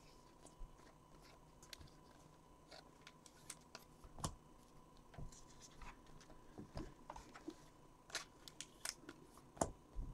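Faint, scattered clicks and rustles of trading cards and torn pack wrappers being handled on a table, over a faint steady hum.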